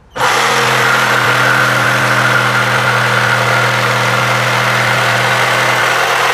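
Xenon CDJS1845 18 V cordless jigsaw starting up about a split second in and running steadily as it saws through wood, with the pendulum action switched off: a steady motor hum under the buzz of the reciprocating blade.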